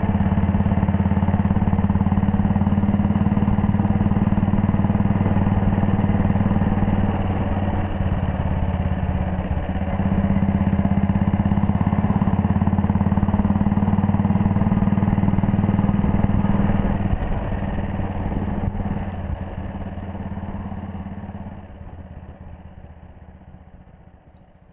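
A 1939 Red Panther Model 40's 250 cc single-cylinder four-stroke engine running under way, heard from the handlebars over a hiss of wind and wet-road noise. It runs loud and steady, then dies away gradually over the last several seconds.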